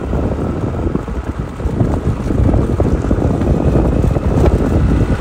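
Motorcycle riding along a dirt track: the engine running under loud wind buffeting the microphone, with no break or change.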